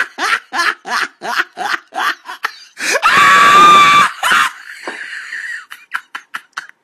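A person laughing in a quick run of short, even bursts, then breaking into a loud, harsh scream that lasts about a second. After the scream only a few faint clicks are left.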